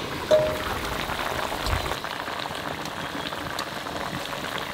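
Hilsa curry boiling hard in a metal karai over a wood fire, a dense crackle of popping bubbles. About a third of a second in, the metal lid clanks with a brief ring as it is lifted off.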